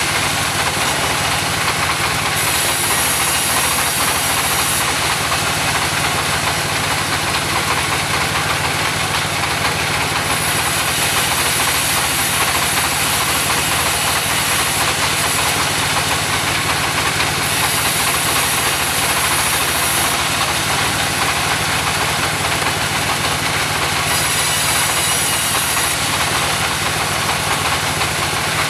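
Portable sawmill's engine running steadily with a constant hum and hiss, the upper sound shifting in strength every few seconds.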